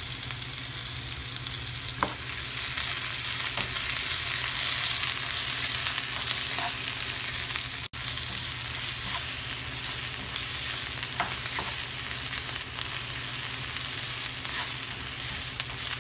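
Sliced onions, dried red chillies and garlic cloves sizzling in oil in a frying pan, with a spatula stirring and scraping the pan every couple of seconds. The sound cuts out for an instant about eight seconds in.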